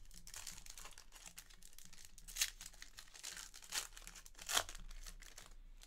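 Foil wrapper of a Panini Revolution basketball card pack being torn open and crinkled by hand, with three sharper crackles in the second half.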